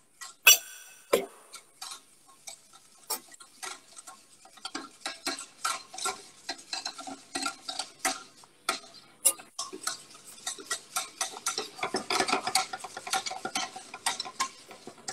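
Wire whisks scraping and clicking against stainless steel pots as flour is stirred into melted butter to make a roux. The strokes come in an irregular clatter, with a sharp clack about half a second in, and grow busier in the last few seconds.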